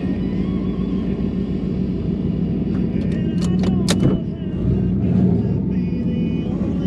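Twin-turbo Coyote V8 Mustang engine running steadily with a low rumble. A few short, sharp high chirps come about three to four seconds in.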